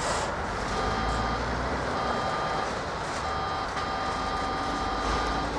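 Freight train of autorack cars rolling past with a steady rumble, overlaid by a high steady squealing tone that sounds three times, briefly twice and then for about two seconds.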